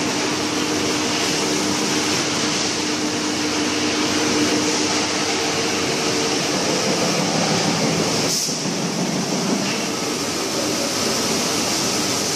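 Steady running noise of steel drum production line machinery, with a steady hum over it for the first several seconds and a brief dip about eight seconds in.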